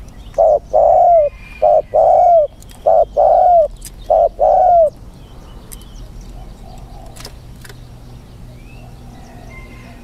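Spotted dove cooing loudly: four phrases in the first five seconds, each a short note followed by a longer, arched coo. Faint chirps of other birds run underneath.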